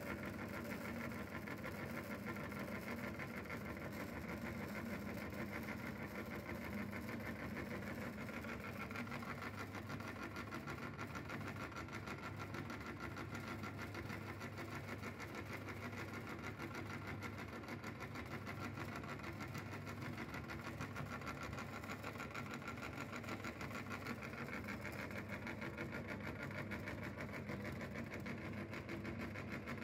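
Belt-driven meat grinder running steadily, its motor, belt pulley and auger giving a continuous mechanical hum with a fast, even rattle.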